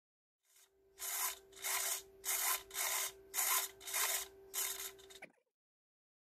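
Micro servo driving the flap rudder pushrod back and forth: six short buzzing sweeps about half a second apart, over a steady hum that cuts off with them.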